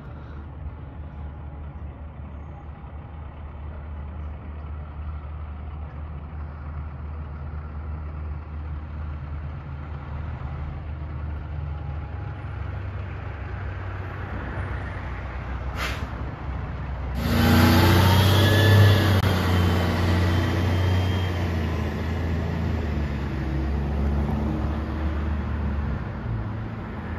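Diesel engine of a 2005 Pierce Arrow XT fire engine running low and steady, growing slowly louder as the truck moves. About two-thirds of the way through it gets suddenly much louder and stays loud.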